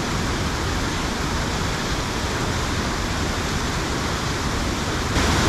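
Steady rush of falling water, an even hiss with no pitch to it, which steps up a little in loudness about five seconds in.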